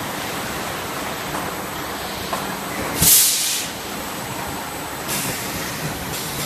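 Automatic bottle-filling machine on a detergent and shampoo line running with a steady machinery noise. About three seconds in, a knock and a loud pneumatic hiss lasting under a second stand out, and a fainter hiss comes about two seconds later.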